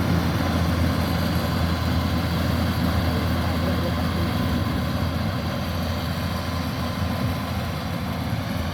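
Rice combine harvester's engine running steadily with a low, heavy sound, easing off slightly near the end.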